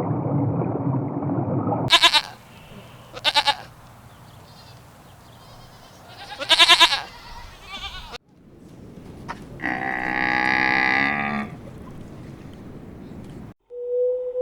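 Bleating calls of farm animals: three short bleats, then a longer, louder bleat about ten seconds in. A low rumbling noise in the first two seconds cuts off as the bleats begin.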